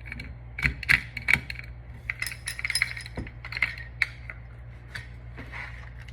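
Small metal parts of a caliper handle clicking and clinking as the handle is shaken and worked to seat its spring: irregular sharp clicks, busiest in the first few seconds and then sparser.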